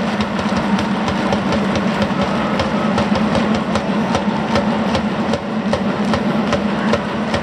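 Stadium crowd after a goal: scattered hand claps, several a second, over a steady low hum of the crowd.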